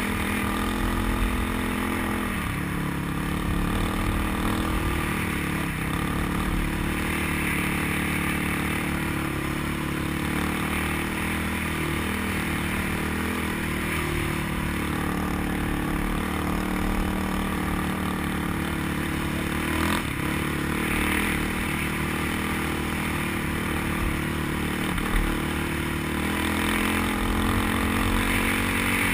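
Off-road vehicle engine running steadily as the rider crosses open sand, picked up by a helmet-mounted camera, its pitch shifting slightly a few times.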